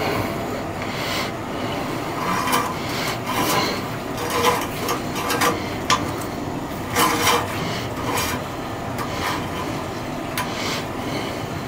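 A steel oil dipstick sliding and scraping in its tube on a Caterpillar 3208 marine diesel as it is reseated to recheck the oil, in a series of short rubbing scrapes over a steady background hum.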